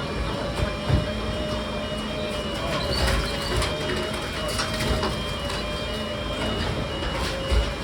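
Heavy machinery running with a steady, slightly wavering whine, a string of short high beeps like a warning alarm, and scattered knocks and clanks.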